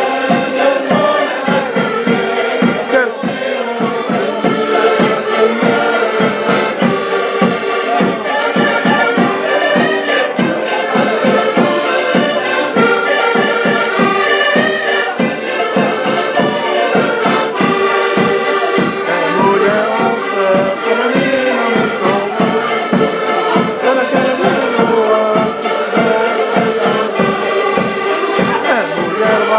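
A band of diatonic button accordions (concertinas) playing a lively Portuguese folk tune in sustained reedy chords, with a small strummed guitar and a large bass drum keeping a steady beat.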